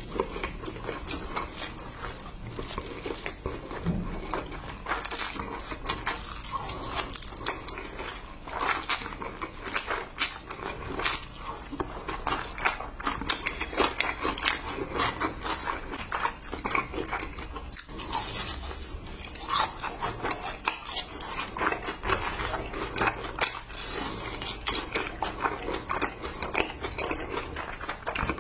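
Close-miked eating: instant noodles slurped and chewed, with many small clicks and clacks of chopsticks and a spoon against the dishes.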